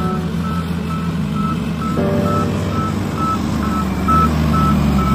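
SDLG motor grader backing up: its reversing alarm beeps about twice a second over the steady running of its diesel engine.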